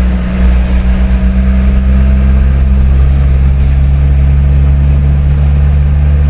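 Truck engine running under way, heard from inside the cab as a loud, steady low drone. The engine note shifts slightly about three seconds in.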